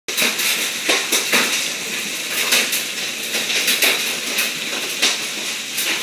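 Hail and heavy rain beating down: a steady dense hiss broken by frequent, irregular clattering hits.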